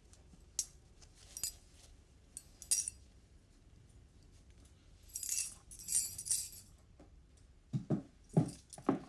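Metal bangles clinking and jingling in short bursts, the loudest cluster about five to six and a half seconds in, followed by a few short, lower sounds near the end.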